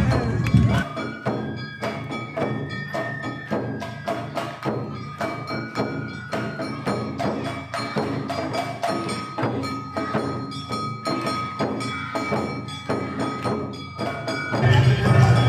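Awa Odori dance music: a quick, even beat of percussion strikes under a high melody of held notes.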